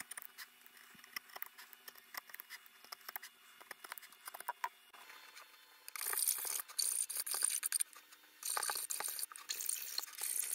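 A small knife blade paring wood with light scratchy clicks, then, about six seconds in, a metal file rasping back and forth in a wooden notch in rapid strokes, in two bouts with a short pause between.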